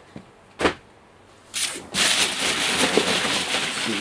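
A single sharp knock about half a second in. From about a second and a half, a hand rummages through polystyrene packing peanuts in a cardboard box, a continuous scratchy rustle.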